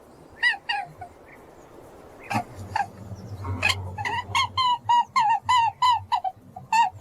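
Rabbit squeaking: two short squeaks near the start, then a run of squeaks at about three a second in the second half. A couple of soft knocks come in the middle.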